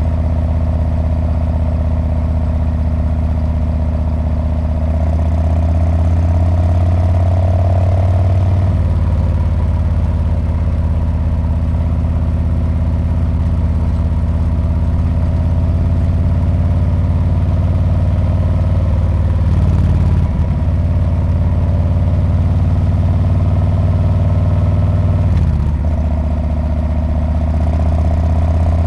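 Harley-Davidson Street Bob's V-twin engine and exhaust running under way with a steady, deep engine note. The note changes about nine, twenty and twenty-five seconds in.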